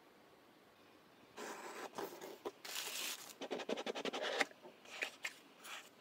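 Cardboard phone retail box being opened and its paper insert handled by gloved hands: rustling and scraping of card, with a quick run of small clicks a little past the middle. It starts after about a second and a half of quiet.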